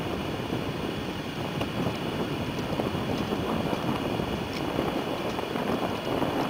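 Steady rumbling noise of wind buffeting the microphone out on open water.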